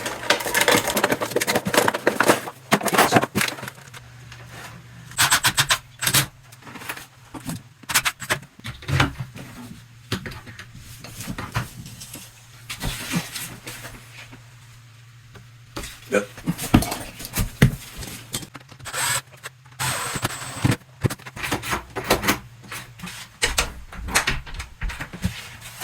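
Metal door handle and lockset parts being fitted into a wooden door: irregular clicks, knocks and scrapes of metal against metal and wood, with a quieter pause about halfway through.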